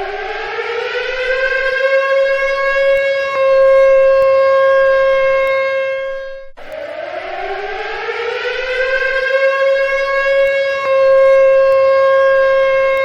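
Civil defense siren sounding an attack warning. It winds up in pitch, holds a steady tone that gets louder, then drops away briefly about six seconds in before winding up again and holding.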